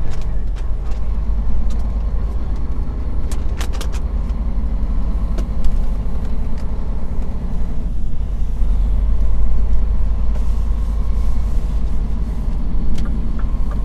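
Scania truck's engine and tyre noise heard inside the cab while driving at speed, a steady low drone. A few sharp clicks sound a few seconds in, and short beep-like tones come near the end.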